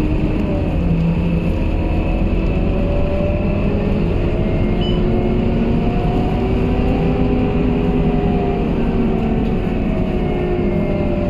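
Scania K230UB city bus's five-cylinder diesel engine and drivetrain running at a steady cruise, heard from inside the passenger cabin over road noise, with a faint whine that slowly wavers in pitch.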